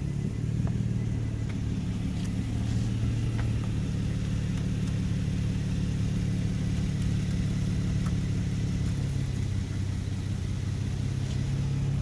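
A car engine running steadily at an even pitch, which shifts slightly near the end.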